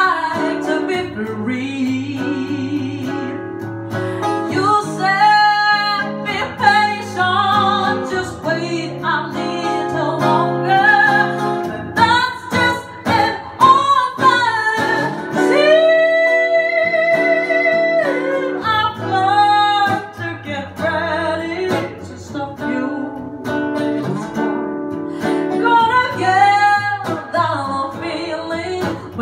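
Woman singing a ballad into a microphone, accompanied by acoustic guitar; about halfway through she holds one long high note.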